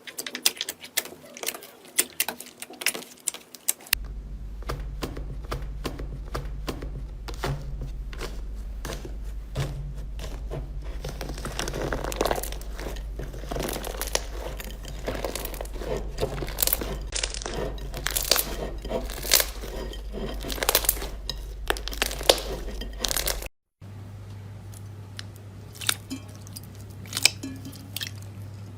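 Slime being squeezed and pressed by hand, crackling and popping with a dense run of sharp clicks.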